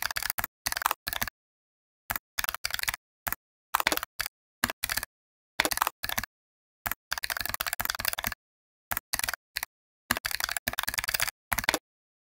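Computer keyboard typing in short bursts of quick keystrokes, with complete silence in the gaps between bursts.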